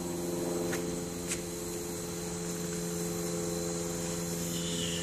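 Steady machine hum made of several even tones, with a couple of faint taps about a second in.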